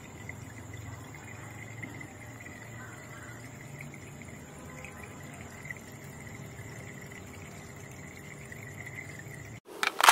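Water from a homemade plastic-box aquarium filter splashing steadily out of its PVC return pipe into the tank, over a low steady hum and a faint steady high tone. About nine and a half seconds in it cuts to sharp, loud clicks and rattles of a plastic storage box and lid being handled.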